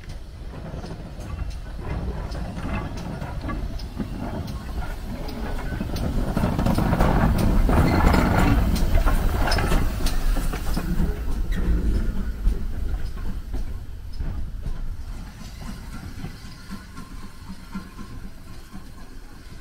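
Steam tank locomotive running past at low speed. It grows louder to a peak about seven to ten seconds in, with a rumble and many sharp clicks from the wheels and running gear, then fades as it moves away.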